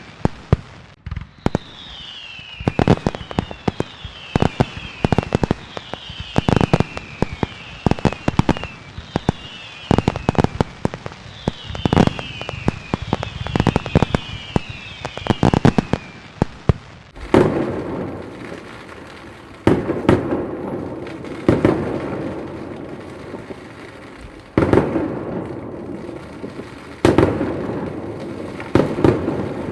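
Fireworks display: a rapid stream of sharp bangs with many short whistles falling in pitch, then from about halfway heavier booms every two to three seconds, each trailing off in a rumble.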